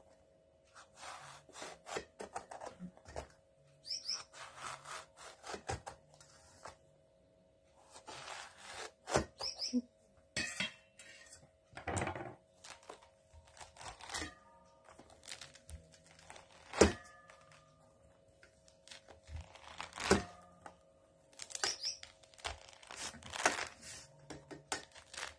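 Small knife scoring and sawing through thick pomelo rind, an irregular run of scraping and rubbing sounds broken by sharp knocks, the loudest about two-thirds of the way through. Near the end the rind is pried loose from the fruit by hand.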